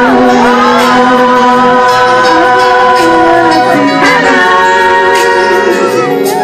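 Gospel song with instrumental backing: a long sung note is held at the end of a line, then the backing moves to a new sustained chord about four seconds in.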